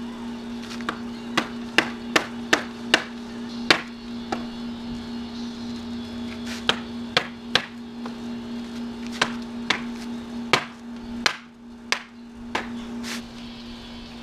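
Hammer blows on a wooden pallet, knocking its slats loose: a run of sharp whacks, a pause of about two seconds, then a second run, over a steady low hum.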